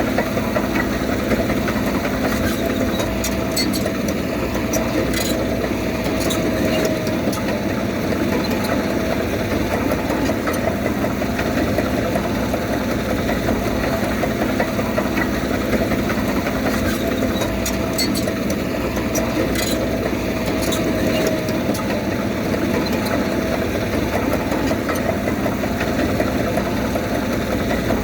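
Komatsu D31P bulldozer's diesel engine running steadily, with two spells of light metallic clinking.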